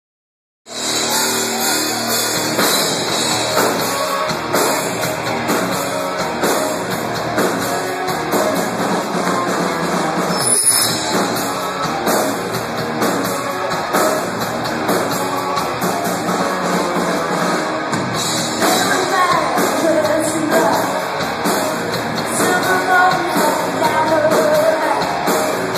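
Live rock band playing loud through the PA: electric guitars, bass and drum kit, starting abruptly about half a second in. A woman sings over it in the later part.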